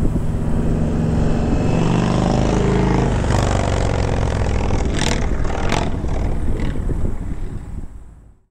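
Indian Thunder Stroke 111 V-twin motorcycle engine running through an aftermarket-style exhaust. It revs up and then falls back, with two short sharp noises about five seconds in, and fades out near the end.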